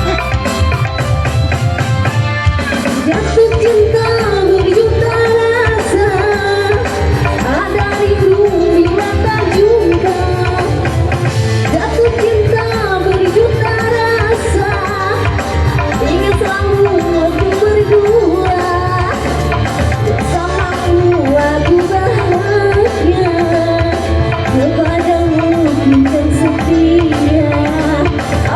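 A song sung over a band with hand-drum percussion and a steady beat, the voice carrying a wavering melody.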